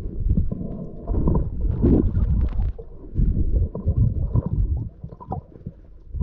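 Muffled underwater sound from a snorkeler's camera: uneven low rumbling and gurgling of water and bubbles, with scattered clicks and a faint steady hum.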